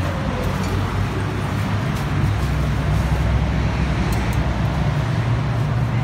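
Steady low rumble of road traffic with engines running, with a few faint clicks over it.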